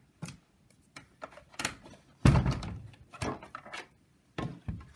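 A few scattered knocks and thumps of things being handled and set down on a craft table, the loudest a little after two seconds in.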